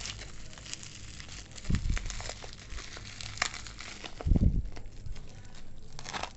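Plastic bubble-wrap packaging crinkling and crackling as hands squeeze and pull it open, with two dull thumps, about two seconds and four and a half seconds in.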